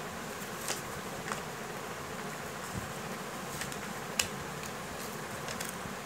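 A sheet of paper being handled and folded by hand: a few soft rustles and ticks, the sharpest about four seconds in, over a steady buzzing hum in the background.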